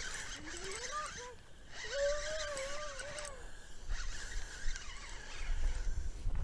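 Spinning reel being cranked to reel in a small hooked fish, with a low wind rumble on the microphone that grows in the second half.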